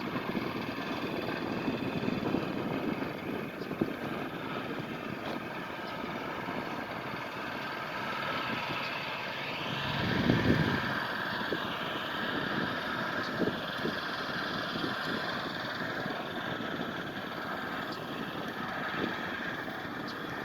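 Tugboat engine running steadily across the water as it works to get a grounded barge off a shallow sandbar, with a louder surge of low rumble about halfway through.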